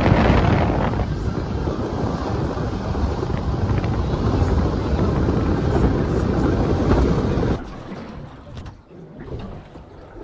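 Wind buffeting the microphone and the rush of water against the hull of a small fishing boat running across calm sea. About seven and a half seconds in it cuts off suddenly to fainter wind and water.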